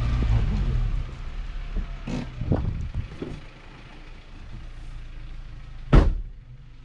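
Suzuki Grand Vitara's engine running hard off-road, then easing off after about a second. Several knocks follow, and one sharp, loud thump comes near the end.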